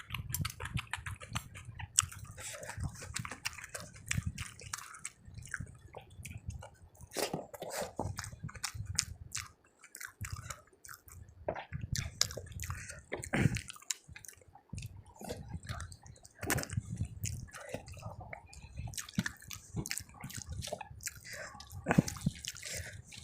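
Close-miked chewing, biting and wet mouth smacks of a person eating rice and curry, with irregular clicks throughout.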